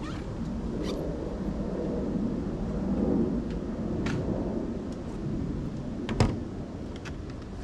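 Low rumbling noise on the microphone, with a few sharp clicks and a louder knock about six seconds in.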